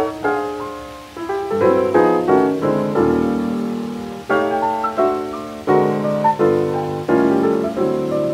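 Solo jazz piano from a 1927 78 rpm record. It plays a string of struck chords, each left to ring and fade, with a longer held chord about three seconds in.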